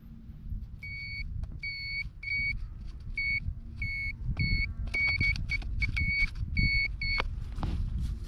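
An orange metal-detecting pinpointer probe beeping in short, high, repeated beeps, about a dozen in an uneven rhythm, as it is pushed around a dig hole: it is signalling a metal target in the soil. The beeps stop about seven seconds in, with rough low scraping of dirt beneath.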